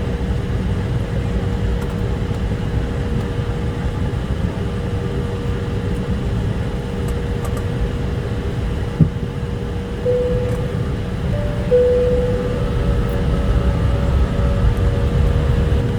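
Airliner cabin noise: a steady low rumble from the engines and air system with a continuous whine. There is a single thump about nine seconds in, and the whine steps slightly higher in pitch after about ten seconds and again near twelve.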